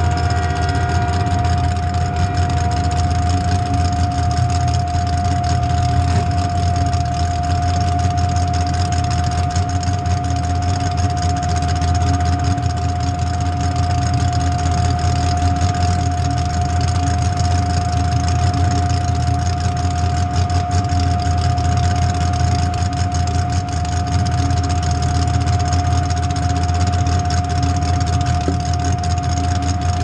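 Demolition derby car's engine idling steadily, heard from inside the stripped cabin, with a steady high-pitched whine over the deep engine note.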